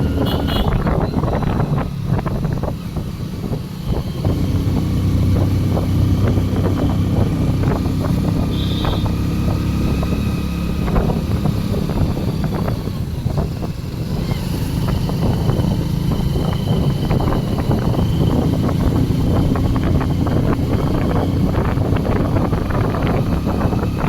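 Motorcycle engine running steadily while riding, with wind buffeting the microphone; it drops briefly in level twice.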